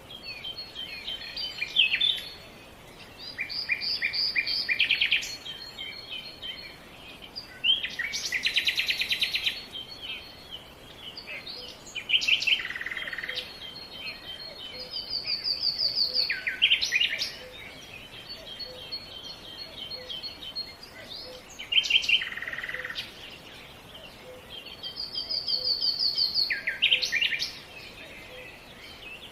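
Songbirds singing: repeated short trills and chirping phrases, a new phrase every few seconds, over a steady background hiss.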